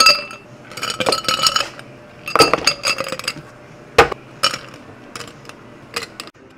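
Ice cubes tipped from a metal scoop into two tall drinking glasses, clattering against the glass in several quick bursts, then a few single clinks near the end.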